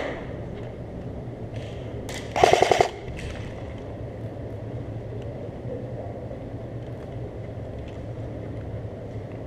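Airsoft rifle firing one short full-auto burst of rapid shots, about half a second long, a couple of seconds in.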